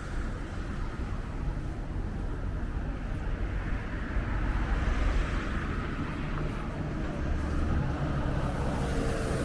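Strong wind buffeting the microphone as a steady low rumble, mixed with road traffic noise; the rumble swells about four to five seconds in.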